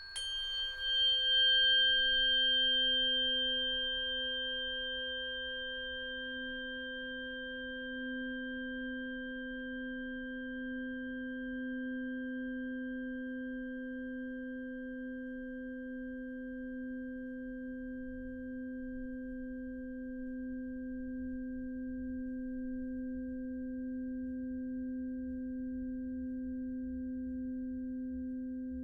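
A singing bowl is struck once. A low, steady hum then swells in and holds, while a few higher ringing tones above it fade away over the first several seconds.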